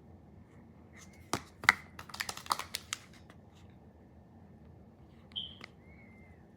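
Handling noise: a quick run of light clicks and taps from about one to three seconds in, then one more tap with a brief squeak near the end, over a faint steady room hum.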